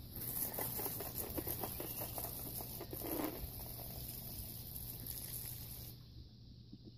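Water spraying from a garden hose and pattering on the ground and a bicycle: a steady hiss that cuts off about six seconds in.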